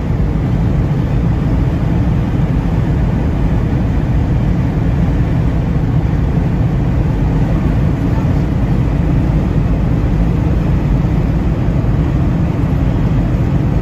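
Steady road, tyre and engine noise heard inside a car cabin cruising at highway speed, loud and heaviest in the low end.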